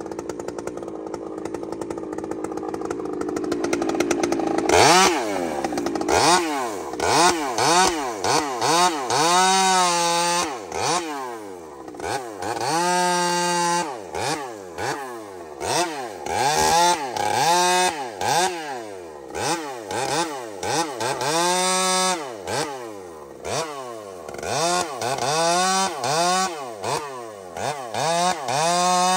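Gas chainsaw running steadily at first, then, about five seconds in, revving up and down again and again as it cuts through small logs, with the pitch climbing and dropping every second or two and holding high through each cut.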